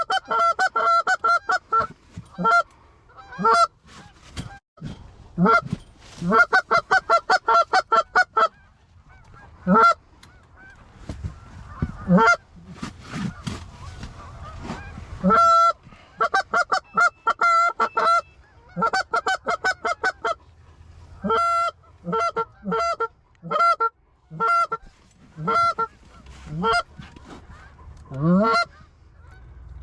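Geese honking in quick runs of short calls, several a second, broken by brief pauses.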